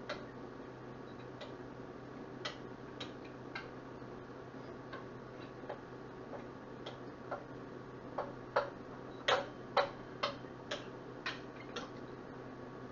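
Metal fork and spoon clicking against a cooking pot while breaking up ground meat. The ticks are irregular, sparse at first, then quicker and louder from about eight seconds in, over a steady low hum.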